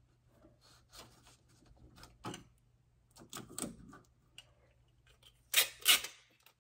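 Adhesive tape and a sheet of paper being handled and pressed onto a wooden door: soft rustles and taps, then two loud short rips of tape near the end.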